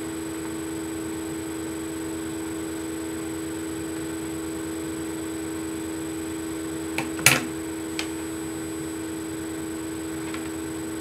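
Steady electrical hum with a few fixed tones. A sharp click comes about seven seconds in, with fainter ones just before and after it.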